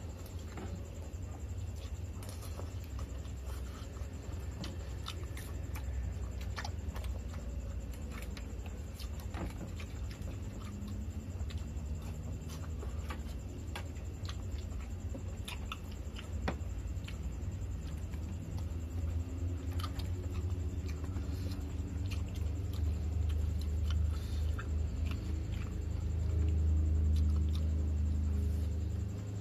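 Eating at a table: scattered clicks of a spoon and fork against dishes and chewing, over a steady low rumble that grows louder near the end.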